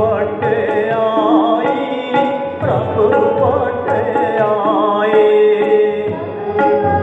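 Devotional song: a singer's ornamented, wavering melody over held notes, with tabla accompaniment.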